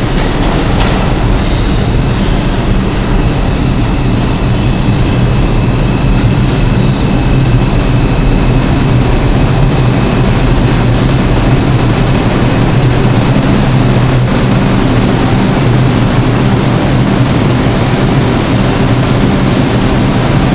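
New York City subway train running through the underground station: a loud, steady rumble of steel wheels on rail, with a thin high whine for several seconds around the middle.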